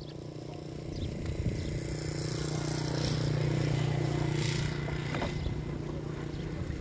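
A small engine running at a steady pitch, growing louder to a peak around the middle and then easing off, as of a motor passing by.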